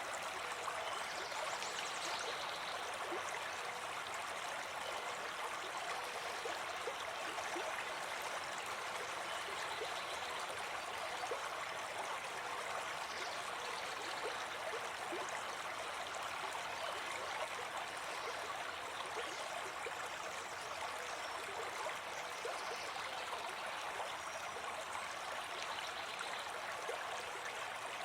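Brook babbling steadily over stones, a continuous running-water sound.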